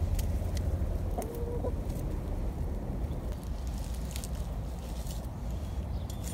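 A hen gives one short, level-pitched call about a second in. A few light clicks follow later, over a steady low rumble.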